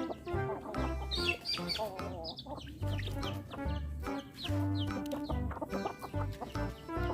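Chickens clucking over background music with a deep, repeating bass line.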